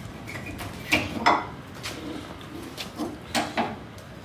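Sharp metallic clinks and knocks, about five of them, the loudest a little over a second in and again after three seconds. They come from a bent steel pry bar working against a nail tack-welded to a steel fender, with a wooden block as the fulcrum, as a small dent is levered out.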